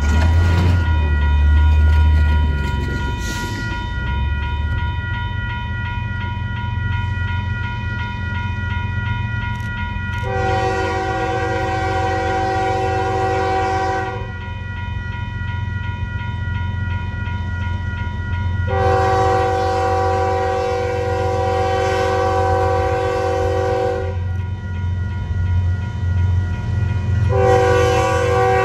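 Diesel freight locomotive's multi-chime air horn sounding two long blasts, about four and five seconds long, and starting a third near the end. Underneath runs the steady low rumble of the moving train, heaviest in the first few seconds.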